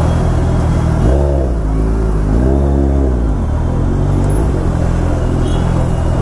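Kawasaki Ninja 1000SX inline-four engine idling, blipped twice: the revs rise and fall briefly about a second in, then again in a longer sweep around two and a half seconds in, before it settles back to a steady idle.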